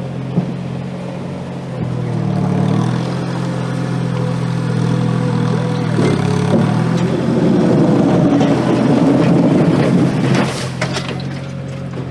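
Gehl 4835 SXT skid steer's diesel engine running, revving up briefly twice, then working hard under load for a few seconds while pushing snow before settling back to a steady run near the end.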